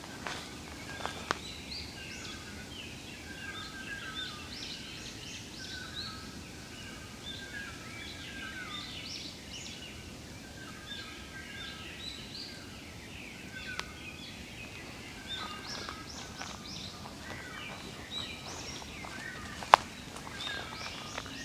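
Several wild birds chirping and trilling over one another in short, quick phrases, over a low outdoor hiss. A few sharp clicks cut through, the loudest a single click shortly before the end.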